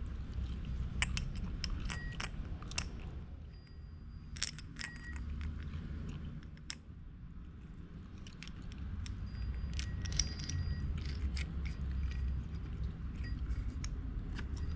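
Metal pieces of a hole saw kit clinking and clattering against each other as they are handled. The sharp clicks ring briefly and come in clusters, over a steady low hum.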